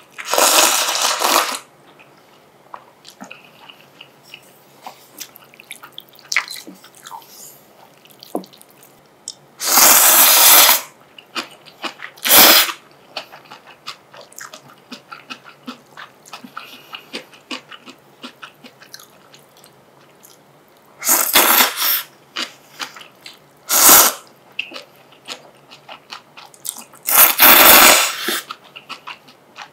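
Close-miked slurping of Shin Ramyun instant noodles and spicy broth: about six loud slurps, each around a second or shorter, spread across the stretch, with quiet chewing and small clicks of chopsticks and bowl between.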